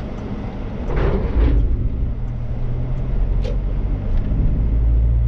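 Car engine and road noise heard from inside the cabin while driving, a steady low rumble that grows louder about a second in as the car picks up speed after a left turn. A short click about three and a half seconds in.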